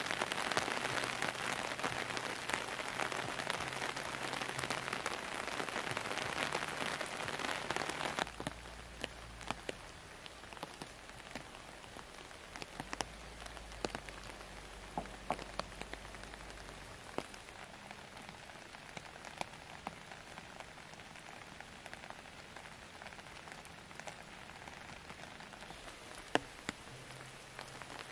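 Steady rainfall: a dense, louder hiss for the first eight seconds or so, then lighter rain with individual drops clicking close by.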